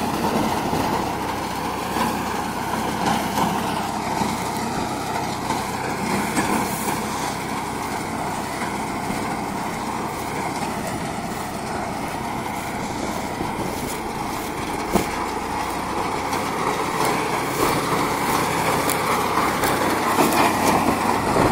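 Tractor engine running steadily under load while driving a PTO-driven Yapel DG 140 reaper-binder through standing crop, with the machine's cutting and binding mechanism adding frequent light clicks and rattles.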